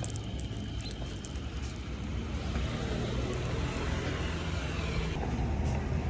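Steady rumble of road traffic, growing a little louder toward the end, with a few faint clicks in the first two seconds.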